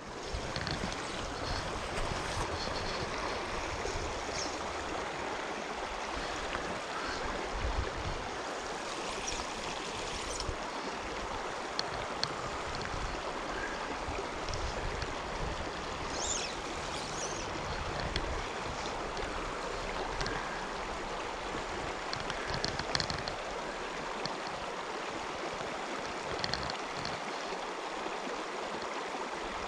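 Small mountain creek running over a cobble bed: a steady rush of flowing water.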